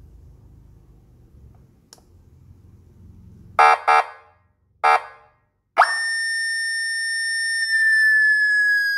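20 W electronic motorcycle siren, police-style ('113'), giving three short loud chirps. A wail then sweeps sharply up to a steady high tone, which begins to slowly fall in pitch near the end.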